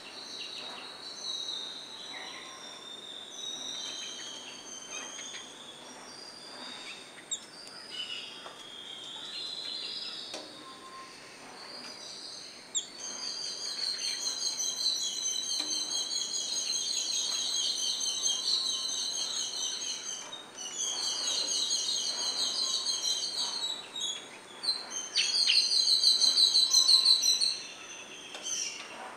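Jungle babblers calling: scattered squeaky calls at first, then, from about halfway, a fast, repeated chattering in three long bouts, the last one the loudest.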